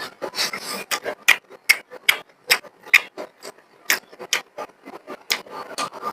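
Close-miked eating of rice and beef: irregular wet smacks and chewing clicks from the mouth, several a second.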